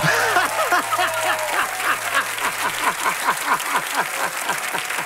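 A man laughing hard: a long string of short, falling 'ha' sounds, about four to five a second, over applause.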